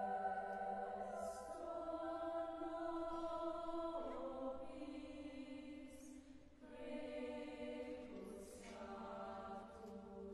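Upper-voice (SSAA) youth choir singing a cappella in slow, sustained chords, the harmony shifting together every two seconds or so. Soft hissing consonants come at a few of the chord changes.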